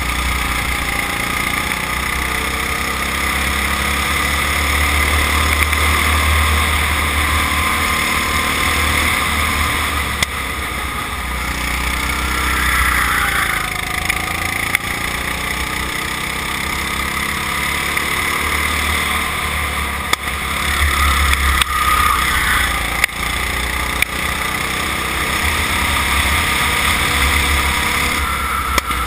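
Go-kart engine running at speed, heard from a camera mounted on the kart, its pitch dipping and climbing again through the corners over a heavy low rumble. A few sharp knocks come through now and then.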